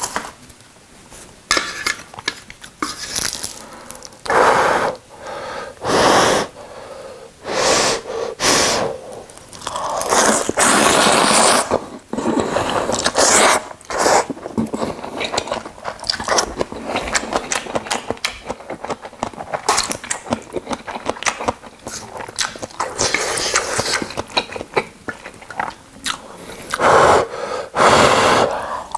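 Close-miked slurping of thick ramyun noodles, several long slurps of a second or two, between smacking chewing and short clicks.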